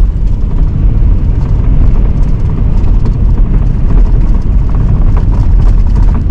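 A vehicle driving on a snowy road: a loud, steady low rumble of engine and road noise.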